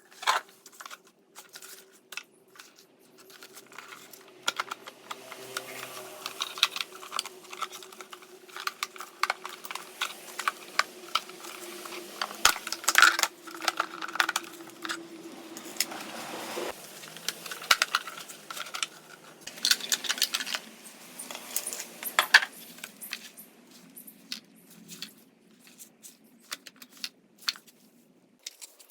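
Suzuki Jimny power-folding door mirror motor running with rapid clicking and grinding from its fold mechanism, the sign of a known failing part inside the mirror. A steady hum runs under the clicks and drops lower about halfway through.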